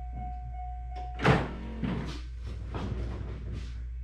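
1997–2004 C5 Corvette's warning chime pinging steadily, cut off about a second in by a loud thunk, then a few softer knocks and bumps.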